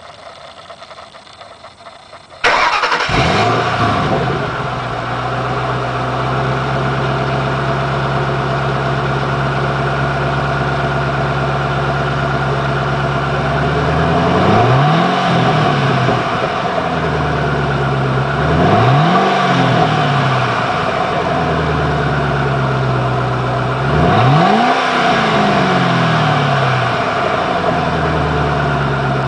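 2006 Mustang GT's 4.6-litre V8 heard through its stock mufflers, starting up about two and a half seconds in and settling into a steady idle. The throttle is blipped three times, each rev rising and falling quickly, with another rev beginning at the end.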